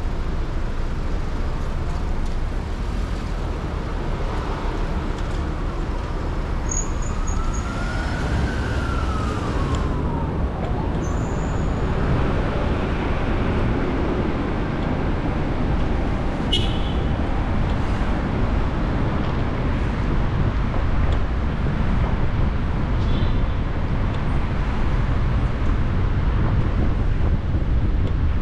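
Steady city street traffic rumble heard from a moving car, with an emergency-vehicle siren wailing in one slow rise and fall about a quarter of the way in. A couple of brief high squeaks come through later.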